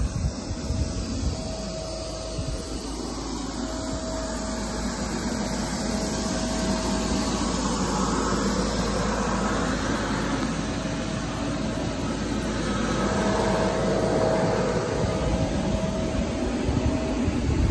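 Electric inflation blower of an inflatable bounce house running steadily: a continuous rush of air with a faint steady hum, growing somewhat louder partway through.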